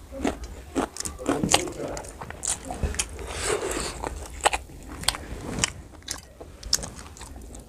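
Close-miked chewing of spicy pork curry with rice: irregular wet smacks and crunchy bites from the mouth.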